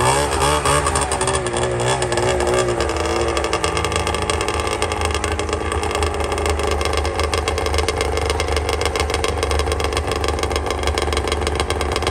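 Polaris RMK snowmobile's two-stroke engine running, its pitch wavering up and down for the first three seconds, then settling into a steady idle.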